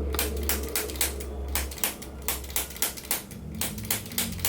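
Handheld chiropractic adjusting gun tapping along the spine: a rapid, even run of sharp clicks, about four a second, over a low motor hum that fades after a second or two.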